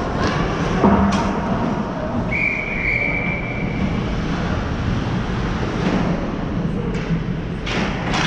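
Ice hockey play echoing in an indoor rink: skates and sticks on the ice, a sharp knock about a second in, then a referee's whistle blown once for about a second and a half to stop play. More stick and skate knocks near the end.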